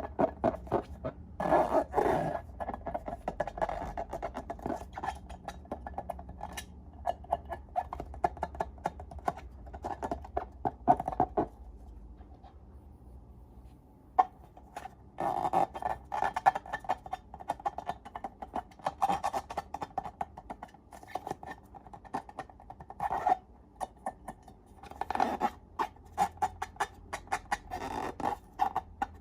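Slime being squeezed and worked by hand, with dense sticky crackling and small popping clicks. It goes quieter for a couple of seconds about halfway through, then the crackling starts again.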